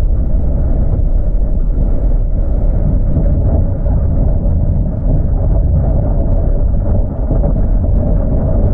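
Steady low rumble of a van's engine and tyres, heard from inside the cab while it drives.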